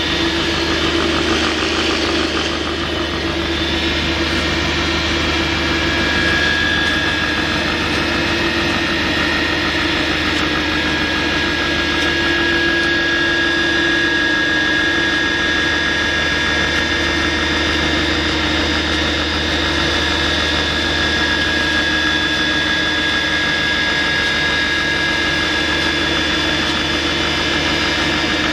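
Stainless-steel dried chilli grinding mill running steadily: a constant machine hum with a couple of steady whining tones above it.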